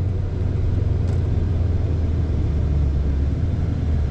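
Chrysler 300C's 5.7 L HEMI V8 running under way, heard from inside the cabin as a steady low drone.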